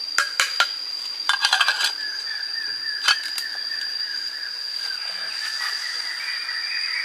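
A few sharp clinks, then a quick rattling run of clinks about a second and a half in and one more just after three seconds, over a steady high-pitched insect drone.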